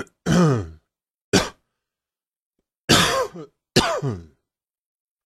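A person coughing four times in short, separate coughs, each one voiced and dropping in pitch.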